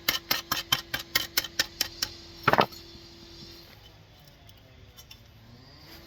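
Hammer blows on car-body sheet steel, about five quick taps a second for two seconds, then one heavier ringing blow. This is bending a repair lip over a bolster chisel. A faint steady tone runs underneath.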